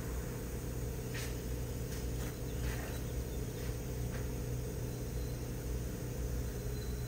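Engine of a 2006 GMC Canyon running at a steady idle, heard close to the open throttle body. The truck is in reduced-power mode with a P2176 throttle fault, caused by a broken wire to the throttle actuator motor.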